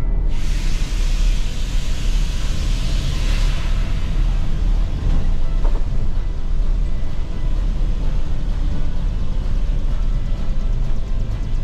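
Steady low engine and road rumble inside the cabin of a moving vehicle, with a rushing hiss of air or tyres for the first three seconds or so.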